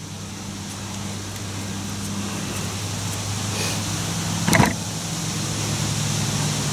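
Steady low hum of a vehicle engine running nearby, growing slightly louder, with a single sharp knock about four and a half seconds in.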